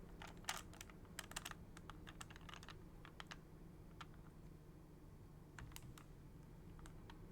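Faint plastic clicking of an original Rubik's Cube being turned and handled: a quick run of clicks in the first second and a half, then a few scattered single clicks.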